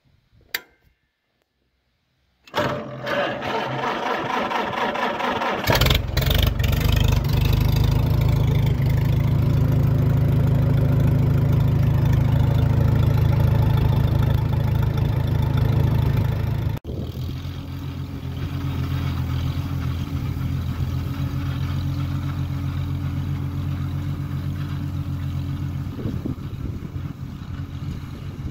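1950 McCormick Farmall H's four-cylinder engine cranked by its starter, catching about five seconds in and then running steadily and loud. About halfway through the sound cuts suddenly to the same engine heard quieter and farther off, running steadily.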